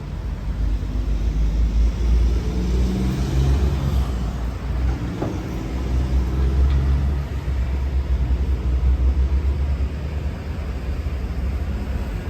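Low, steady vehicle engine rumble, rising and falling a little.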